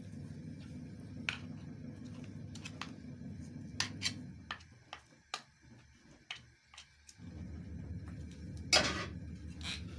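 A steel spoon stirring and pressing a sticky flaxseed mixture in a steel plate, giving scattered clicks and clinks of spoon on metal, the loudest near the end. A steady low hum underneath cuts out for a few seconds in the middle.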